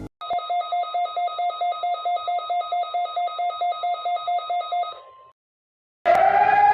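Electronic emergency alert tone: a pulsing, ringer-like trill of several tones, about four pulses a second, that stops after about five seconds. After a short gap, a loud steady alarm tone starts near the end.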